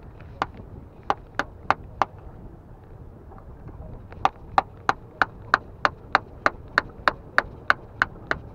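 Metal pliers used as a hammer, tapping on a screwdriver to chip rock oysters off the rock: sharp, ringing clinks. A few come scattered, then a steady run of about three taps a second starts about four seconds in.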